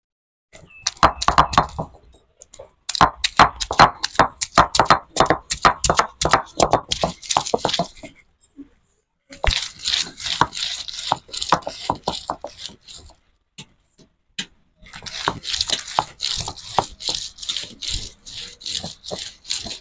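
Heavy stone roller knocking and grinding on a granite grinding slab (ammi kal), crushing ginger and garlic: runs of rapid knocks and scraping strokes, broken by two short pauses, about eight seconds in and again about fourteen seconds in.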